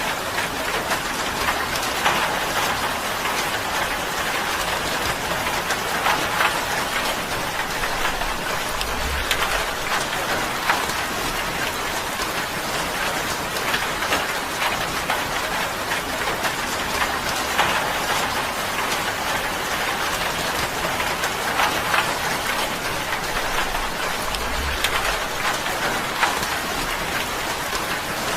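Steady rain falling on a tin roof: a dense, even patter of drops on the metal, with sharper single drop taps standing out throughout.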